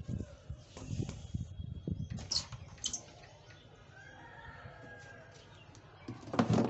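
A plastic corrugated suction hose with its strainer filter being handled over an open cardboard box packed with foam and plastic bags, making irregular knocks and rustles. A louder knock comes near the end.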